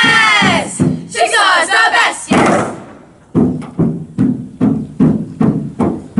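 A group of girls yelling a loud team cheer, their voices falling in pitch. After a short pause comes a steady beat of thuds, about three a second, struck inside the canoe.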